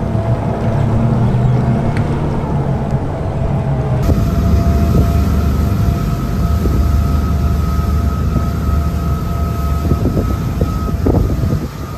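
Twin Ilmor 5.3 L V8 sterndrive engines of a Formula 290 Bowrider running steadily under way, with wind and water noise. The sound changes character abruptly about four seconds in, and from then on a steady whine sits above the engine drone.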